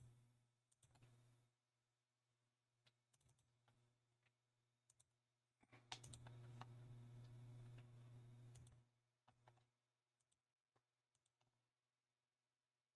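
Near silence, with scattered faint mouse clicks and a faint low hum with rustling for about three seconds in the middle.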